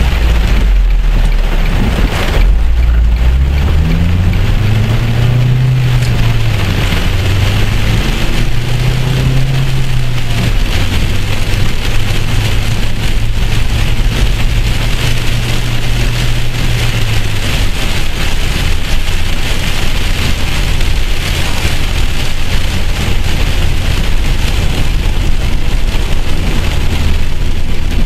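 Heavy rain pelting a car's windshield and roof, heard from inside the moving car as a loud, steady hiss. Under it a low engine drone rises in pitch a couple of times, holds steady, then fades out about two-thirds of the way through.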